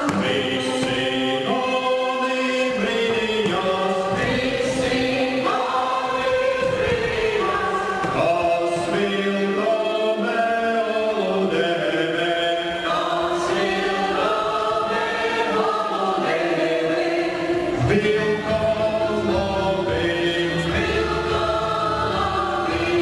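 Choir singing a song in several voices, the music for a folk dance. A deeper low part joins about three quarters of the way through.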